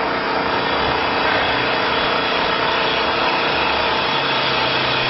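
CNC wood-turning lathe cutting a spinning wooden baluster: a steady rasping of the cutter shaving wood, with a faint machine hum beneath.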